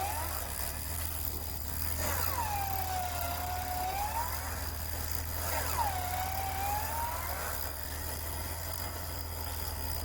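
Vehicle-mounted winch on a Toyota Land Cruiser pulling a stuck truck in three pulls. Each time its motor whine dips in pitch and then climbs back up, over the steady low hum of an idling engine.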